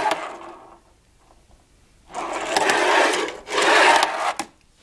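Fingerboard's small wheels rolling and scraping along a ramp: a rush that fades out in the first second, then two longer runs about two seconds in, and a sharp click near the end as the board comes down.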